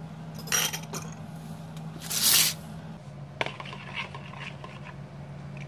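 Short scraping and rustling handling sounds as a spoon scoops tamarind sauce from a plastic bowl over a foil-lined tray. The loudest scrape comes about two seconds in and a sharp click follows a second or so later, over a steady low hum.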